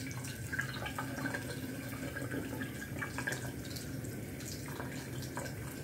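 Bathroom sink faucet running steadily, with water splashing and dripping over hands held under the stream.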